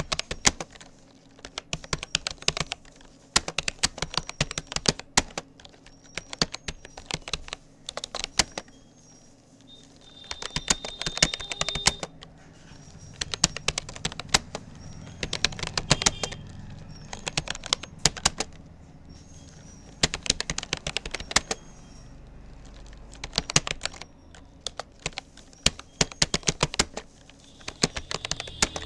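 Typing on a Rapoo computer keyboard: quick runs of key clicks in bursts of a second or two, broken by short pauses.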